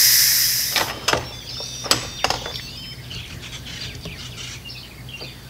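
Instant Pot pressure cooker's steam-release valve hissing loudly as the last of the pressure vents after a natural release, fading out within the first second. Then a few sharp clicks and knocks as the lid is twisted open and lifted off.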